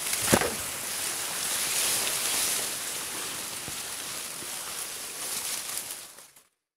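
Tall grass blades and leaves rustling and brushing against the camera as someone pushes through dense undergrowth, with a sharp knock about a third of a second in. The rustling fades out a little before the end.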